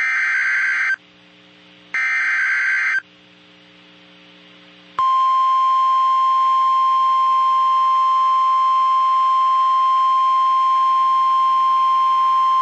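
NOAA Weather Radio emergency alert signalling: two one-second bursts of harsh SAME digital header tones about two seconds apart, then, about five seconds in, the steady 1050 Hz warning alarm tone starts and holds. Together they announce a new severe thunderstorm warning broadcast.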